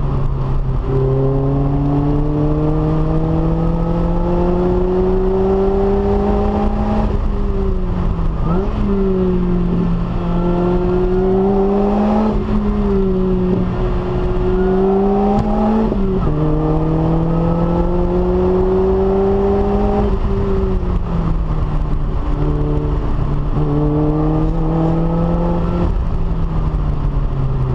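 Lotus Elise S's supercharged 1.8-litre four-cylinder engine, breathing through a Stage 3 aftermarket exhaust, pulling hard under acceleration. Its pitch climbs steadily, then drops sharply at each gear change, about four times.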